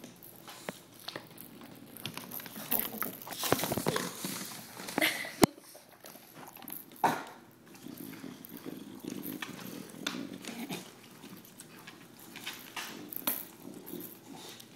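A bulldog and a mini pig eating snacks: irregular crunching and chewing clicks mixed with animal breathing noises. The chewing is busiest in the middle, where one sharp click about five and a half seconds in is the loudest sound.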